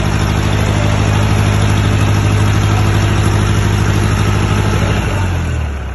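62 kVA diesel generator set's engine running at a steady speed. About five seconds in, its pitch falls and it dies away as the engine runs down.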